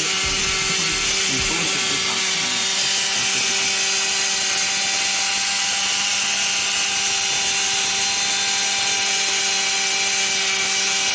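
A concrete cutting machine running at a steady speed, a constant motor whine over a dense, high cutting hiss.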